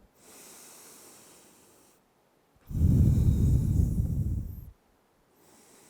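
A person breathing deeply and audibly: a quiet drawn breath in, then a loud breath out lasting about two seconds, with another quiet breath in starting near the end.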